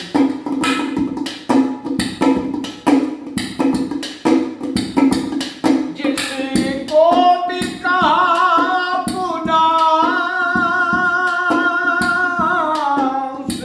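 Music between sung lines of a Hindi-Urdu sad song: steady drum beats over a sustained low drone, then from about halfway a long wordless melodic line that rises, is held with a slight waver, and falls away near the end.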